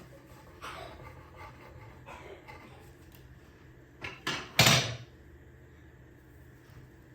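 Household knocks and clatter: a few soft knocks in the first couple of seconds, then three sharper clatters in quick succession about four to five seconds in, the last the loudest.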